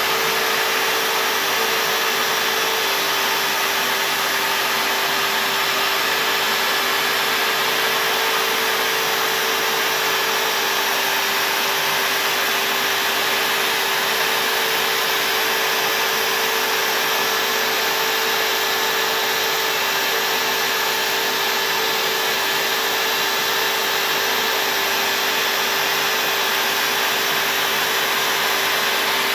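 CNC router spindle running and cutting into a white-faced MDF board, with the dust-extraction vacuum drawing through a hose at the bit. The result is a steady, unbroken whine over a rushing hiss.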